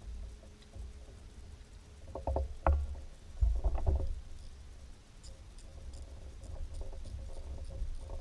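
Knocks and clatter of gear against a fishing kayak, in two short clusters a little over two and about three and a half seconds in, over a steady low rumble.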